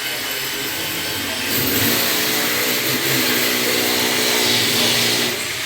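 A loud machine motor running steadily, growing louder about a second and a half in and easing back down near the end.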